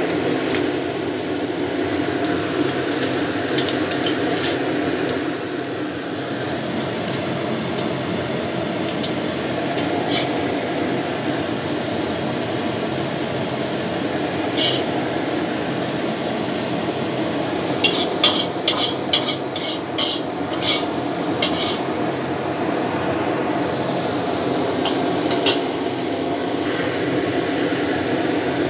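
Egg-coated fish fillets frying in hot oil in a wok, a steady sizzle, with a utensil clicking and scraping against the wok and plate, in a quick run of clicks about two-thirds of the way through.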